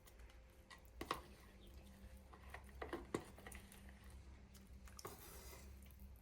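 A few faint, short clicks and light taps over a low steady hum.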